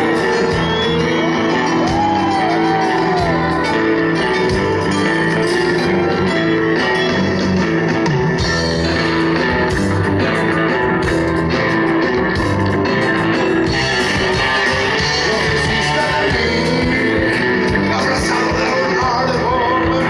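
Live rock band playing at full volume: drums, guitar and keyboards, with a singer's voice rising and falling over the band.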